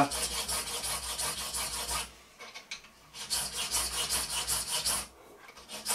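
A thin hand file rasping back and forth on a small brass part, cutting a half-round recess. Quick strokes for about two seconds, a pause of about a second, then a second run of strokes.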